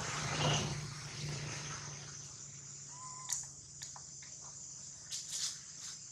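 Insects droning steadily at a high pitch in dry forest, with a few short dry rustles and scrapes of leaves and bark in the second half as young macaques move about. A low hum fades out over the first two seconds.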